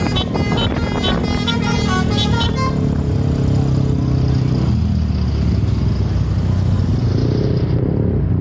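Bus basuri musical horn playing a quick run of short notes for about the first two and a half seconds. After that, the bus's engine runs with a steady low drone.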